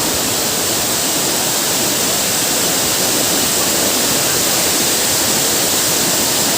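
Large, high waterfall crashing down, a loud steady rush of falling water.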